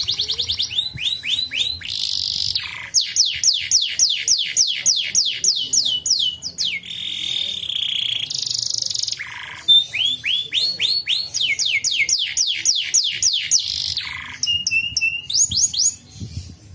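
Domestic canary singing a long, continuous song. It runs fast trills of repeated notes that each sweep downward, with a held buzzy note near the middle and several long slurs dropping low in pitch.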